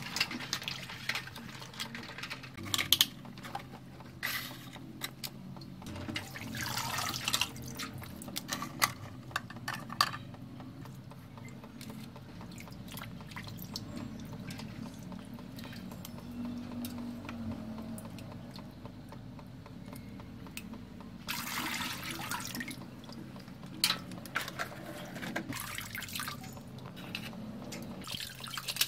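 Water sloshing and splashing in a metal basin as plastic toy vehicles are swished and scrubbed in it by hand, in several louder spells with small dripping and knocks of plastic in between.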